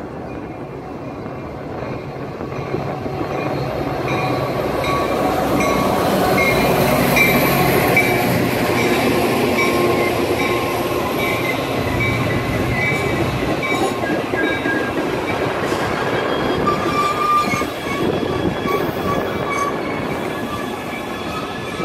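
Metra diesel commuter train approaching and passing close by: the sound builds over the first several seconds as the locomotive arrives, then the bilevel gallery cars roll past with a steady rumble of wheels on rail and high-pitched metallic squeals.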